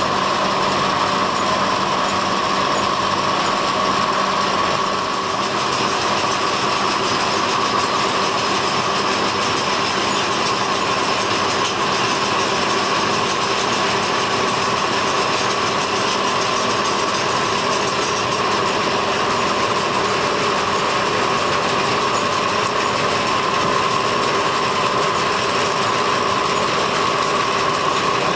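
Plastic rope-making machinery running: a steady, loud mechanical din with a constant high hum over it.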